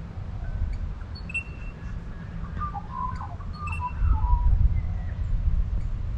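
Birds calling: short whistled notes, with a quick run of warbling notes in the middle, over a low rumble that grows louder about four seconds in.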